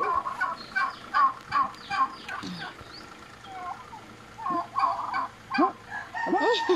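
Farmyard poultry calling: a quick run of short repeated notes over the first two seconds or so, then scattered bending calls and a longer held call near the end.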